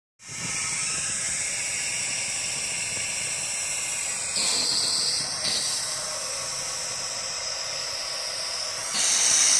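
Long-wand propane torch burning with a steady hiss, its flame on tree bark. The hiss swells louder briefly about four seconds in and again near the end.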